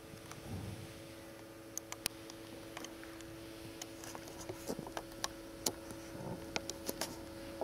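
Sound-art performance of music-box zinc buckets and electronics: a steady drone of two held tones, overlaid by scattered sharp ticks and clicks that come more often in the second half, with a few soft low thuds.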